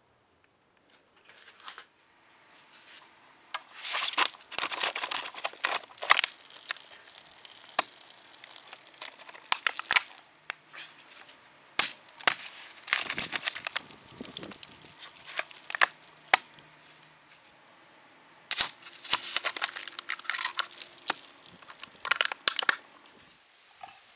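Steel dagger stabbing and slashing through a full plastic drink bottle: a long run of sharp cracks and crunching as the plastic crumples and tears, with juice spraying.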